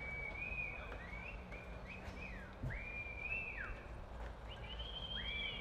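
Spectators whistling in an arena crowd: a string of long, high held whistles, each rising at the start and dropping off at the end, with two overlapping near the end, cheering on the horse and rider.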